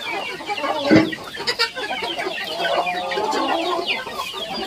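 A flock of Indonesian village chickens (ayam kampung) clucking and chirping in short, overlapping calls as they crowd around a feed bowl, with a single sharp thump about a second in.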